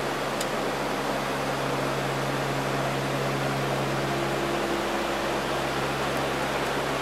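Steady cockpit noise of a Lockheed L-188 Electra's four Allison 501 turboprop engines and airflow: an even rush with a few steady low propeller tones running under it.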